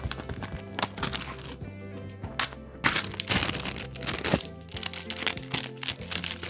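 Handmade paper blind bag being handled and opened: several short bursts of paper crinkling and rustling, the loudest about three seconds in, over background music.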